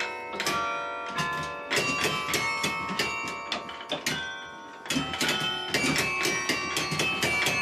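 Carillon played by hand from its baton keyboard: a tune of struck bells, several notes a second, each ringing on over the next.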